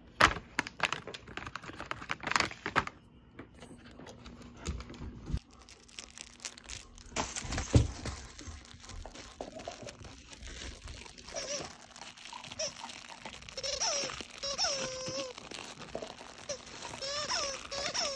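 Crinkling of a plastic treat bag being handled, with sharp crackles, for the first several seconds. Later a plush newspaper dog toy squeaks again and again in short, bending squeaks as a husky chews it.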